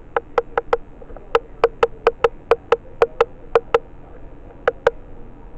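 A quick, uneven run of short, sharp clicks, about four or five a second, each with a slight ringing pitch. They pause briefly and then give two last clicks near the end.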